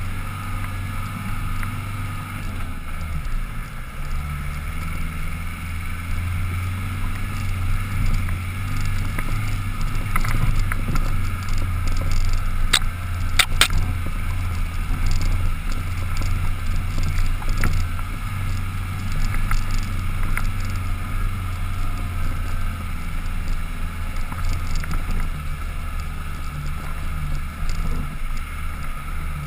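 Land Rover Defender 110's engine running in a steady low drone as it pulls uphill on a dirt trail, with a few sharp knocks about halfway through.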